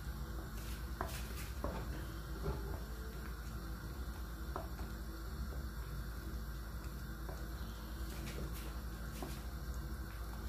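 Wooden spoon stirring a thick pork-blood stew (dinuguan) in a stainless steel pot, with a few light knocks of the spoon against the pot. The stew is stirred without stopping so the blood thickens without curdling. A steady low hum lies under it.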